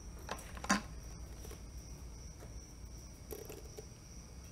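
Two light knocks in the first second, the second one louder, as a wooden-stocked bolt-action rifle is handled, with a weaker one later. Under them runs a faint, steady, high-pitched tone.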